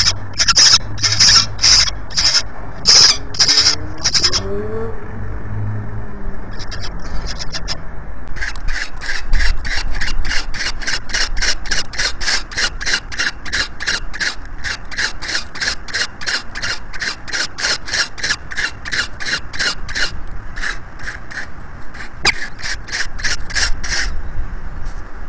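Peregrine falcons calling at the nest. Quick, thin, high calls come in the first few seconds, then, after a short lull, a harsh rasping call repeats about three times a second for most of the rest, while prey is being fed to the chicks.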